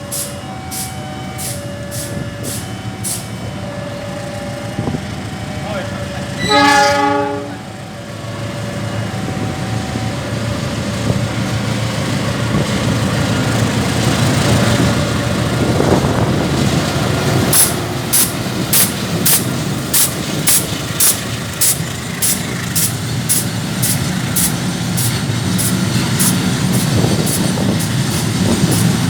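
CC 206 diesel locomotive running, with short sharp hissing puffs repeating about two to three times a second: the odd "jis jis jis" sound. They fade out after the first few seconds and return steadily in the last ten or so. A single horn blast about seven seconds in is the loudest sound, and the engine grows louder after it.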